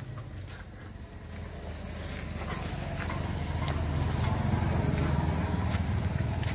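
A motor vehicle engine running, its drone growing steadily louder over a few seconds, with a few light clicks and knocks over it.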